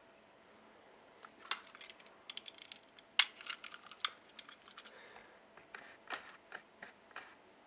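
Henry toy engine being handled in the hands: a run of irregular small clicks and taps of hard toy parts, starting about a second in, with one sharper click about three seconds in.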